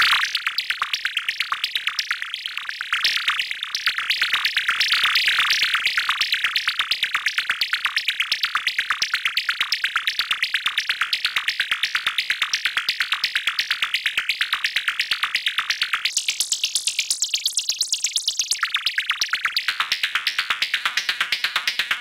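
Behringer System 100 analog modular synthesizer playing a locust-like patch: a steady train of high chirping pulses, about four a second. About three-quarters of the way through, the tone turns brighter and thinner for a couple of seconds, then settles back.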